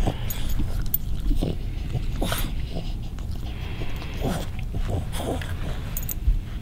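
A Cavalier King Charles Spaniel making short vocal sounds, several in a row, while being teased with a bone.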